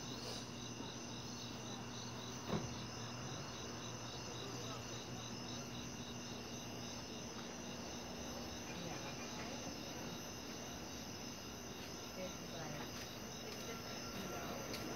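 Crickets chirping in a steady, evenly pulsing trill over a faint low hum.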